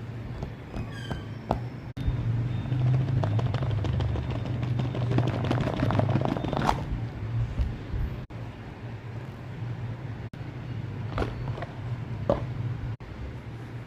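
Packaging of a Moyu Weilong v11 speedcube being handled and opened: rustling and many small clicks, busiest in the first half, with a few sharper clicks near the end. A steady low hum runs underneath.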